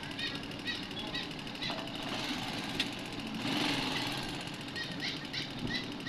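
A vehicle engine running at low speed, with a short high rising chirp repeated about twice a second over it and a brief rush of noise about three and a half seconds in.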